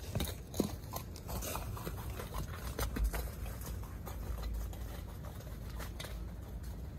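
Push-along rolling lawn aerator (Rollaerator) rolled across the lawn: its steel tine wheels clink and knock irregularly as they punch into the turf, with footsteps on grass. The knocks come thickest in the first few seconds and then thin out as it moves away.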